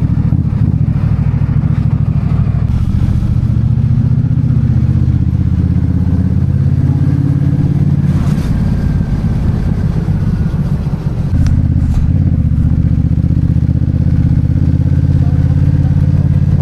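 A vehicle's engine running steadily under load, its pitch rising and falling with speed, with a sudden drop in engine note about eleven seconds in.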